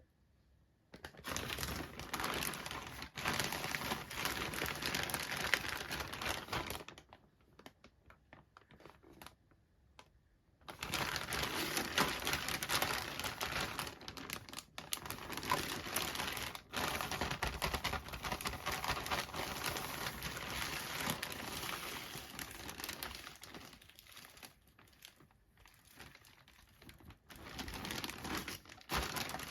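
Plastic and cardboard doll packaging crinkling and rustling as it is handled and opened, in long stretches with a lull of a few seconds partway through.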